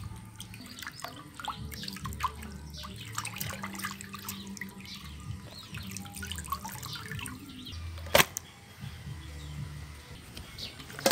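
Water splashing and sloshing as raw pork is rubbed and squeezed by hand in a stainless steel bowl of water, with one sharp knock about eight seconds in.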